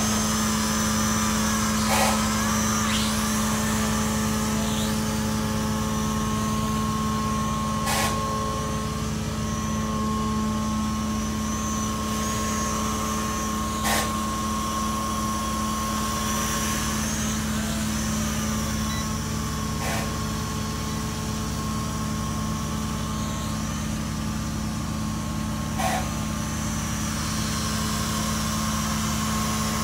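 Small foldable toy quadcopter drone in flight, its propellers buzzing steadily with a high whine that wavers as it manoeuvres. A short tick comes about every six seconds.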